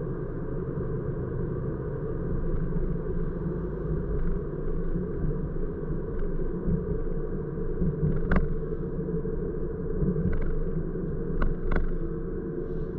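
Car driving along a city street, heard from inside the cabin: a steady low rumble of engine and tyre noise. A few short sharp clicks come through in the second half.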